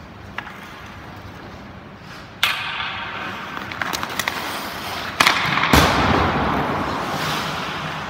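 Ice hockey drill in an echoing indoor rink: a few light taps of the stick on the puck, skate blades scraping the ice from about two and a half seconds in, then a little after five seconds a sharp crack of a shot followed half a second later by a louder crack that rings on in the arena.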